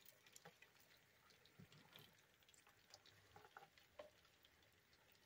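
Near silence, with faint scattered light clicks and ticks from hundreds of fiddler crabs scuttling over a plastic bin and a wet foam block.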